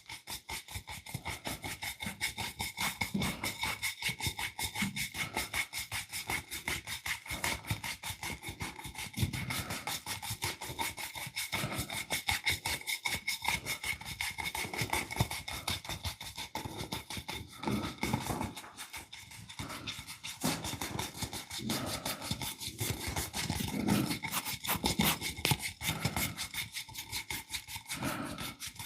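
Hands working a massage on bare skin with quick, steady rubbing and slapping strokes, several a second.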